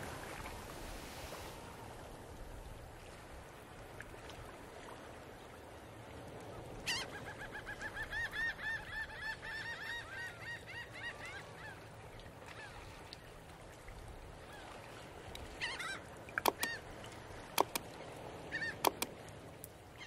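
Faint outdoor ambience with a flock of birds calling: a quick run of repeated calls about seven seconds in that lasts several seconds. A few sharp knocks follow near the end.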